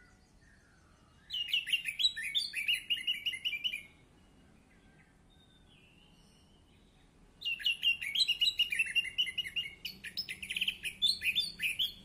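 Orange-headed thrush singing: a fast, varied run of high chirping notes for about two and a half seconds, then a second longer run starting about seven seconds in.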